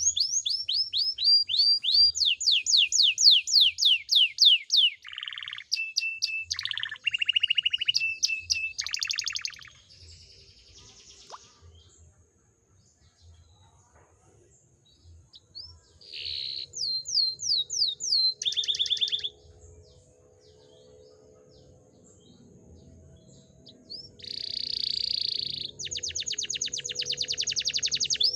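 Domestic canary singing in long, rapid trills of repeated high notes, stopping for a few seconds twice before starting up again.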